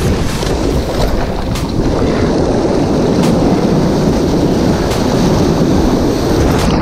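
Shallow surf washing and churning around a wader's legs, loud and close, with wind buffeting the microphone and a few sharp ticks of spray.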